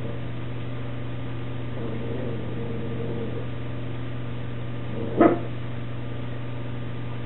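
A dog barks once, short and loud, about five seconds in, over a steady low hum.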